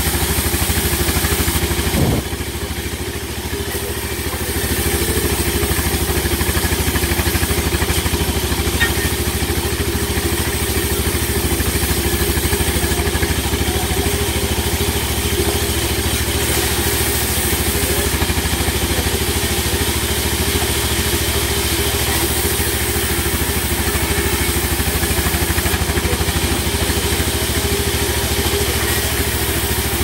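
Band sawmill running steadily while rain tree timber is fed through the blade. A brief knock comes about two seconds in, and the sound drops for a few seconds before returning to full level.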